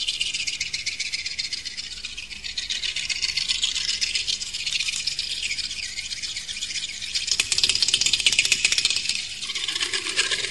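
Dense, high rattling: a fast patter of tiny clicks with nothing low underneath, growing louder about seven to nine seconds in.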